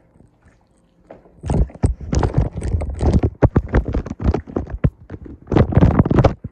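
Handling noise from a handheld phone being jostled and rubbed as its holder walks: dense, irregular knocks and scrapes, starting about a second and a half in.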